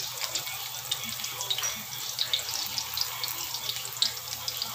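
Chopped onion and garlic sizzling in hot oil in an aluminium wok as they are sautéed, a steady hiss scattered with small crackles.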